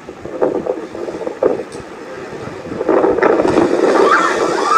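Wind buffeting a handheld phone microphone aboard a tour boat, over engine and water noise, with a few knocks. It gets louder about three seconds in, with raised voices near the end.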